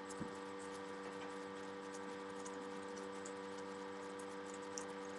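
Steady electrical hum made of several fixed tones, with faint light taps and clicks from handling a balsa model plane and a cardboard control surface, including a soft knock just after the start.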